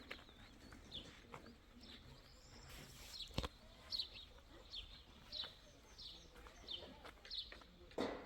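Small birds chirping: short, falling chirps repeated about twice a second, faint. A sharp click comes about three and a half seconds in, and a knock near the end.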